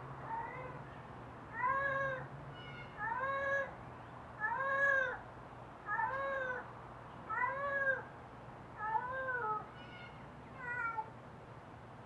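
An animal giving about eight mewing calls, each about half a second long and spaced roughly a second and a half apart, each rising then falling in pitch; the first one is faint.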